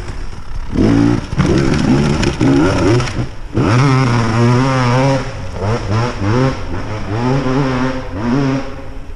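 Beta two-stroke enduro motorcycle engine revving in repeated throttle bursts, its pitch rising and falling again and again, with one longer pull about a third of the way in.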